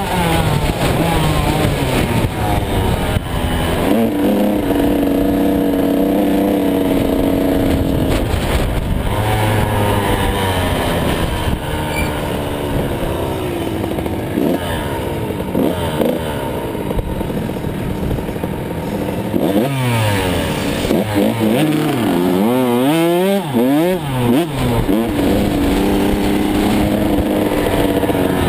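An 85cc two-stroke motocross bike engine, heard from the rider's helmet, running at low speed with the throttle opening and closing. Later there is a run of quick throttle blips, the pitch rising and falling several times.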